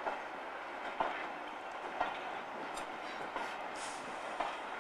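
Royal Scotsman coaches rolling slowly, their wheels knocking over rail joints about once a second, with a brief high squeal about three and a half seconds in.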